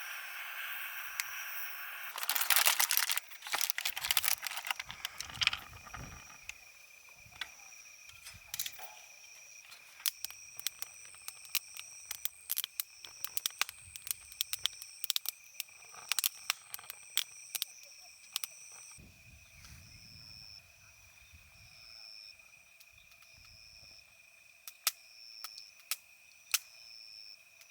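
Insects chirping, a steady high trill with a second call pulsing about once a second, over a run of sharp clicks and rustling handling noises, loudest a few seconds in.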